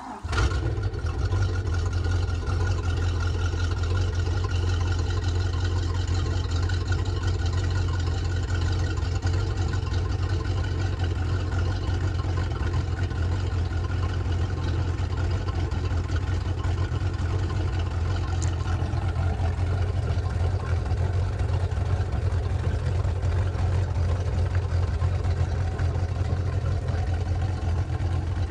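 Crownline 202 bow rider's sterndrive inboard engine starting within the first second, then idling steadily while run on the trailer with a garden hose supplying its cooling water.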